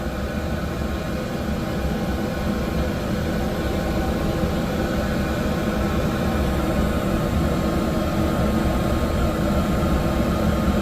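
Steady mechanical hum of running machinery: a low drone with several steady tones over it, unchanging throughout.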